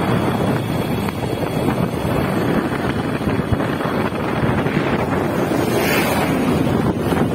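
Wind buffeting the microphone: a loud, steady low rush, with a brief brighter hiss about six seconds in.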